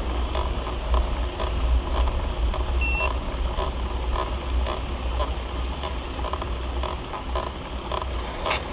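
Steady low rumble of wind and riding noise from a bicycle climbing a steep mountain road, with soft regular clicks about twice a second and one short high beep about three seconds in.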